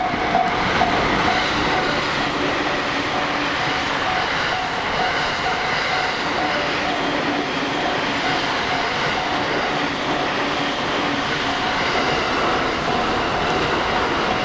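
A train passing through a level crossing: a steady rumble and clatter of wheels on rails throughout. A faint steady tone, which fits the crossing's warning bell, is strongest at the start and fades under the train noise.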